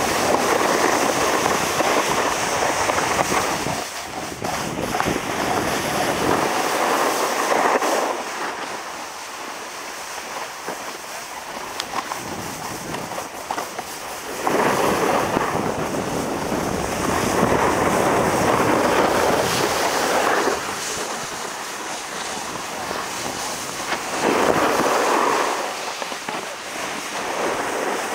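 Snowboards sliding and scraping over packed snow, a rushing, crackly noise in surges of a few seconds, with wind on the microphone.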